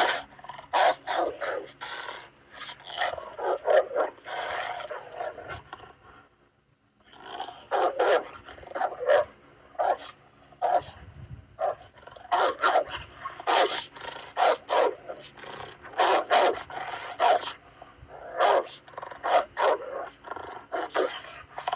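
Dog barking repeatedly in quick runs of short barks, with a break of about a second, six or seven seconds in.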